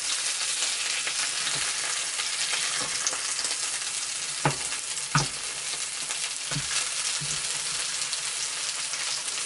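Almond-flour-crusted haddock fillets sizzling in hot coconut oil in a skillet, a steady hiss, with a few light knocks of tongs against the pan around the middle.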